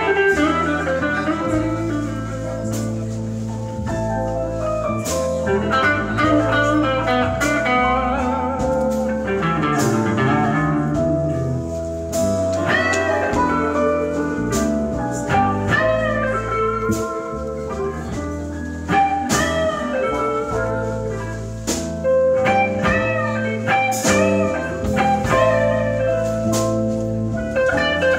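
Live blues band playing: an electric guitar lead with bending notes over bass and drums.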